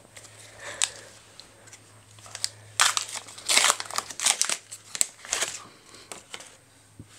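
A 2024 AFL Teamcoach trading-card pack's wrapper crinkling and tearing in the hands as it is opened and the cards are pulled out: a run of irregular crackling rustles, loudest a little before the middle.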